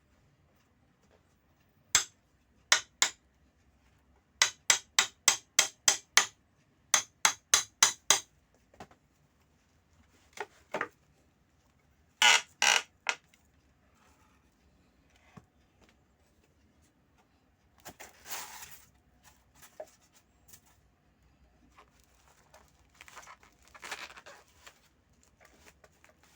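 Heavily taped packaging being worked open by hand: series of sharp clicks and knocks, some in quick runs of about four a second, then softer rustling of the wrapping near the end.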